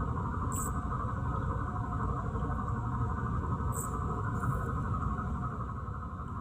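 Steady low rumble with a steady higher hum over it, and a few brief, high-pitched chirps from night insects, about half a second in and twice near four seconds.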